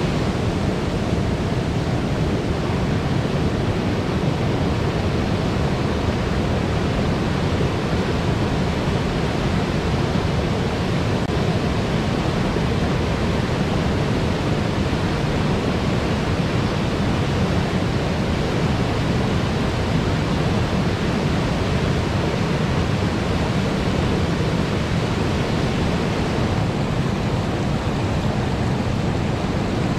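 River water roaring over a weir: a loud, steady rush without breaks.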